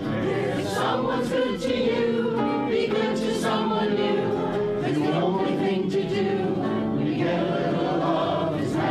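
Group sing-along: a roomful of voices singing a folk chorus together, accompanied by strummed acoustic guitar and piano.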